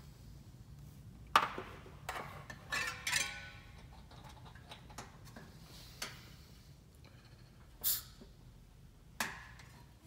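Scattered metallic clicks and clinks as a shop-air hose coupling and a differential compression tester are connected to a radial engine cylinder. The sharpest click comes about one and a half seconds in, with a short ringing squeak around three seconds.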